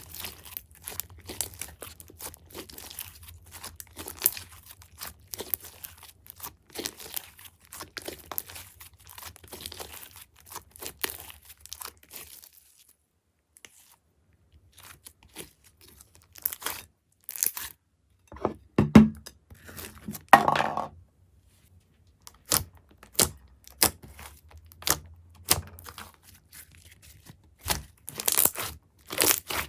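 Glossy slime worked by hand, making a dense run of sticky crackles and small pops. It pauses briefly partway through, then two louder squishes come before the crackling resumes.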